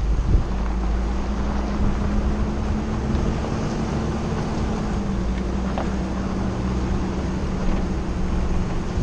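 A vehicle engine running with a steady hum over a low rumble, with wind buffeting the microphone.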